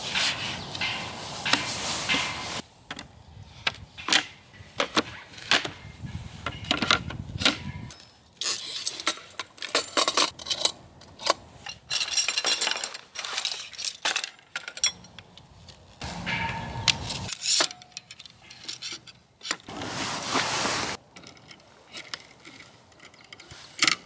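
Camping gear being set up by hand: knocks and clacks of a folding wooden low table, clinks of small metal parts and rustling of a fabric bag. The sounds come as a string of short, sharp clicks and knocks with stretches of rustling between them.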